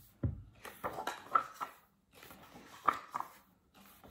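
Pages of a hardcover picture book being turned by hand: a soft thump just after the start, then two bursts of short paper rustles and flaps, about a second in and about three seconds in.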